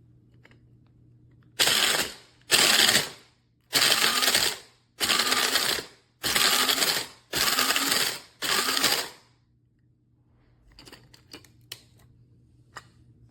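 Amazon Basics electric blade grinder pulsed seven times in short bursts of about a second, its motor spinning up and winding down with each press. A few light clicks follow near the end.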